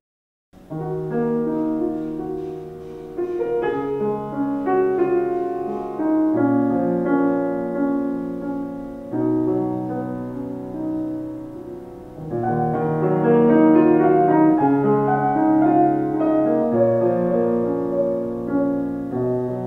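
A C. Bechstein grand piano played slowly, held chords changing every second or two, starting about half a second in after a brief silence.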